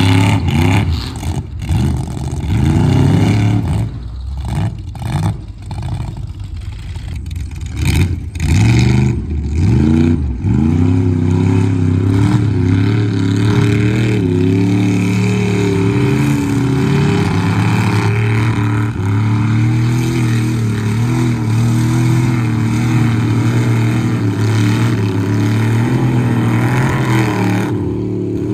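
Lifted OBS Chevy pickup's engine revved hard several times, pitch climbing and dropping, then held at high revs under load as the truck churns through deep mud.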